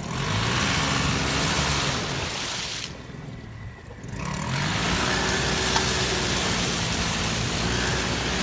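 VW Passat B5 4motion engine revving hard at full throttle while the car is stuck in mud, with the spinning wheels hissing in the mud. The revs climb, fall away about three seconds in, then climb again and hold.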